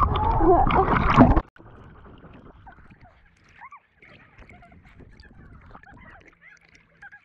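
Ocean water splashing and churning right at a waterproof action camera at the surface, loud for about a second and a half, then cut off suddenly. After it comes a much fainter stretch of sped-up sound with small high chirps.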